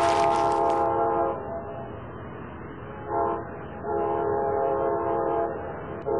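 Train horn sounding a chord of several notes in blasts over a low rumble: a long blast at the start, a short toot about three seconds in, another long blast just after, and a new one starting at the very end.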